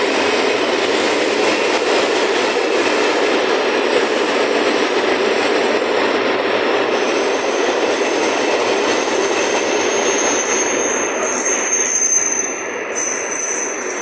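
Grain-loaded hopper wagons of a freight train rolling past: a steady rumble of wheels on rail, with a thin high wheel squeal joining in the last few seconds. Near the end the sound drops as the last wagons go by.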